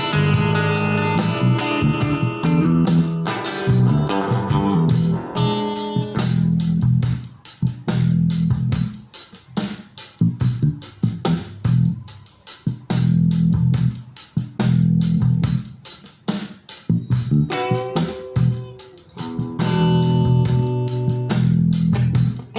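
A song with guitar, bass and a steady drum beat, played through a homemade class A amplifier built with IRF3205 MOSFETs and driven from a computer.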